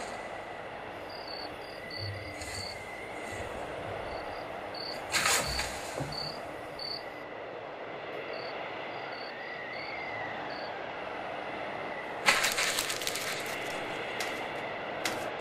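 Steady outdoor ambience: a low noisy hiss with faint, regularly repeated high chirps, broken twice by a short loud rustling burst, about five seconds in and again about twelve seconds in.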